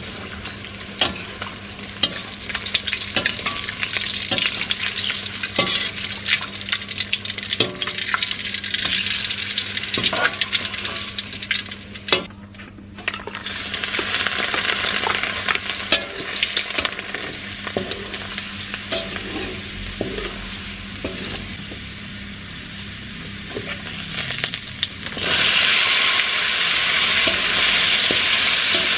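Hot oil sizzling in an aluminium wok over a wood fire, with a metal spatula and wire strainer clicking and scraping against the pan as fried tofu and tempeh are lifted out and ingredients are stirred. The sizzle grows louder after ingredients are tipped into the oil about halfway through, and jumps sharply louder again a few seconds before the end as the stir-fry gets going.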